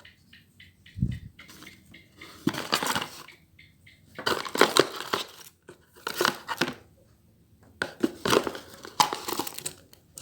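Parcel packaging being torn open and crumpled by hand, in about six short rustling bursts with pauses between them.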